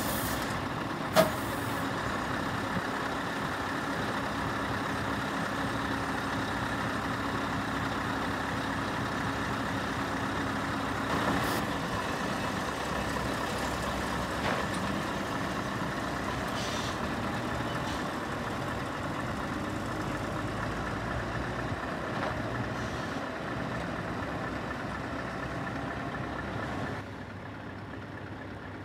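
Scania 730's V8 diesel engine running steadily, with a short, sharp sound about a second in. The sound drops quieter for the last two seconds.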